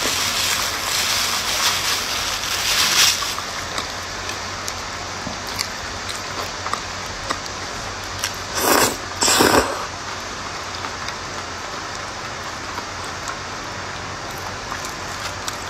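Eating sounds, mouth close to the microphone: chewing a bread bun, then wide noodles eaten from chopsticks, with two short loud slurps just past halfway. A steady hiss runs underneath.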